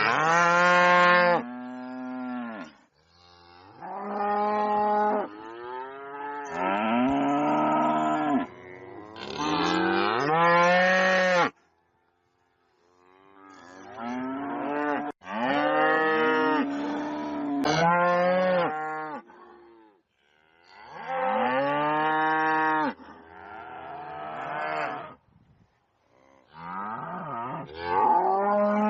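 Cows mooing loudly: a series of long, drawn-out moos, each rising and then falling in pitch, with short pauses between calls.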